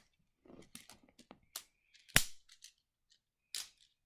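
Plastic magnetic building tiles being handled and snapped together: a run of small clicks and taps, with one sharp, loud snap just over two seconds in.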